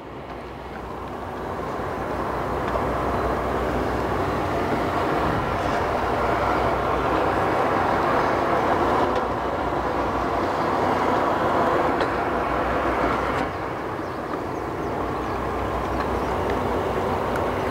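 Fishing boat's engine running under way, building up over the first couple of seconds as the boat moves off to a new spot, then holding steady with slight dips.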